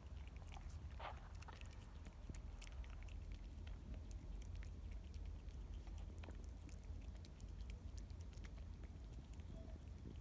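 Faint scattered clicks and small knocks of animals moving and eating, over a steady low rumble.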